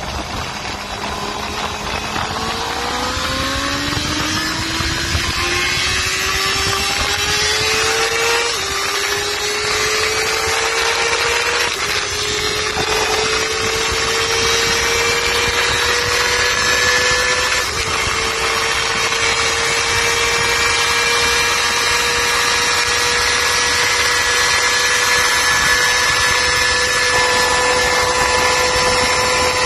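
Kawasaki ZXR250's inline-four engine under hard acceleration, its whine climbing steadily in pitch through the gears, with a quick drop in pitch at each of three upshifts, at about 8, 12 and 18 seconds in. Wind rushes over the bike throughout.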